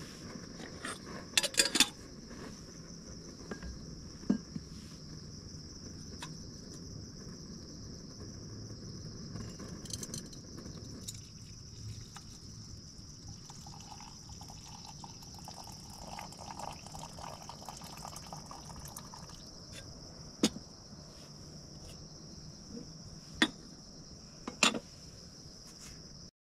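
Hot water poured from a kettle into a stainless steel mug for several seconds midway, with sharp metal clinks of the cookware before and after. Insects chirr steadily and high throughout, and a low rush from the camp stove burner stops about eleven seconds in.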